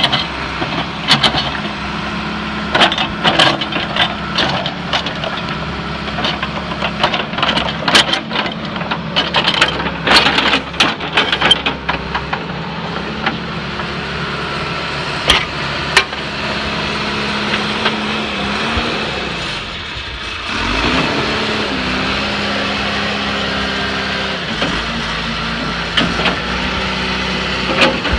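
Backhoe engine running steadily, with many sharp knocks and clanks through the first half. Near the middle the engine's pitch sags briefly, then it settles back to a steady run.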